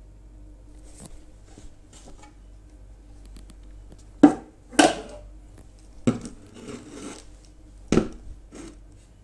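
Objects being handled and set down on a plastic tabletop: a round tin slid aside and two plastic spray bottles put down, giving a few sharp knocks and smaller clatters in the second half.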